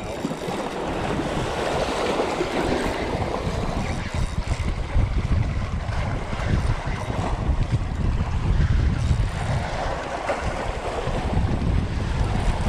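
Wind buffeting the microphone in gusts, over small waves washing and splashing against the rocks.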